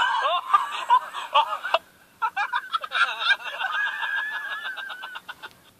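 Soundtrack of a social-media video played through a small phone speaker, thin and without bass: excited high-pitched yelling and laughing voices, ending in a long wavering shout.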